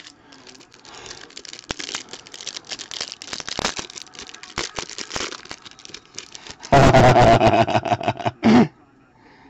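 Plastic trading-card pack wrapper crinkling and crackling as it is torn open and the cards are pulled out. Near the end comes a much louder burst of rustling that lasts about two seconds and cuts off suddenly.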